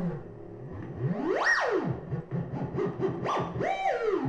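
Electronic oscillator tone, rich in overtones, swooping up and down in pitch as a large dial is turned. It climbs steeply to a high pitch about a second and a half in and falls back, followed by shorter rising and falling glides.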